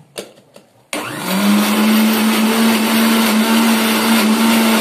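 Electric mixer grinder (mixie) with a small steel jar starting up about a second in and quickly rising to a steady, loud high-speed whir as it grinds minced chicken, spices and egg into a paste. A few light clicks of the jar and lid being handled come before the motor starts.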